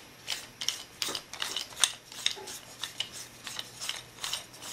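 Cap of a KWC Taurus PT 24/7 airsoft pistol's CO2 magazine being screwed on by hand: a run of short scraping clicks, about three a second, as the threads turn.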